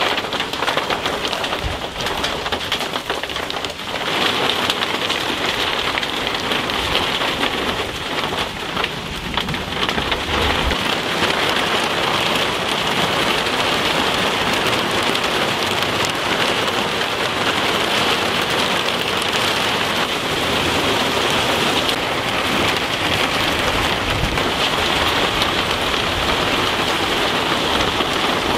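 Heavy thunderstorm rain pouring down, growing heavier about four seconds in and then holding steady, with low rumbles of thunder underneath.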